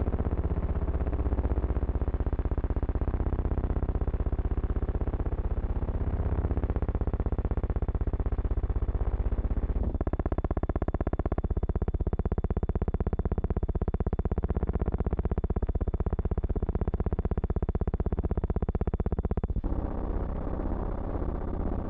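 Harsh, distorted buzzing drone with a synthesizer-like quality. A chord of steady held tones comes in about ten seconds in and cuts off abruptly near the twentieth second, leaving the rougher buzz.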